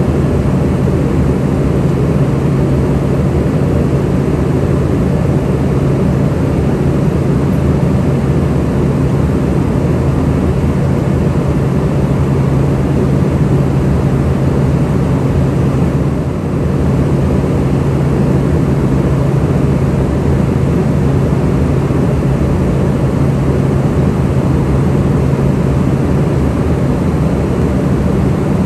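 Steady interior drone of an Embraer ERJ145 in cruise: its Rolls-Royce AE3007 turbofans and the airflow, heard from inside the aircraft. A constant low hum runs under an even rush of noise, with a slight brief dip about halfway through.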